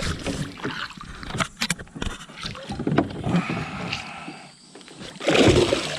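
Water splashing and sloshing beside a float boat, with scattered sharp clicks and knocks of handling. The loudest surge comes near the end.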